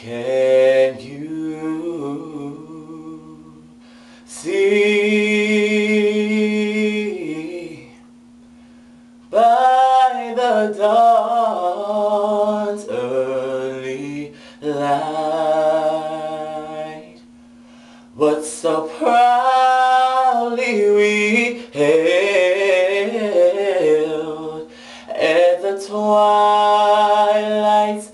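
A man's voice singing unaccompanied, in several phrases with short pauses between them, with long held notes that waver with vibrato and quick vocal runs. A steady low hum runs underneath.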